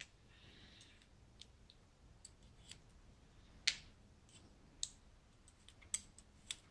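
Small lock pins and steel tweezers clicking as pins are picked out of a Dom IX Saturn cylinder and set into a wooden pin tray: irregular sharp clicks, the loudest about halfway through and a few more close together near the end.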